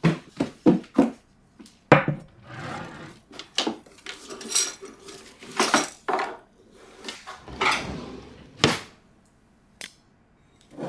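A child's quick footsteps, then a kitchen drawer opened and cutlery clattering and clinking against dishes as she rummages, in irregular bursts of knocks and scrapes.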